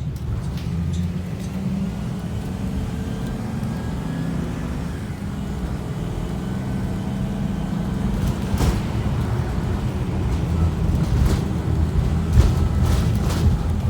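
Inside a 2018 Blue Bird Vision school bus under way: its propane-fuelled Ford V10 engine and the road give a steady low rumble. A few sharp clatters from the bus body come in the second half.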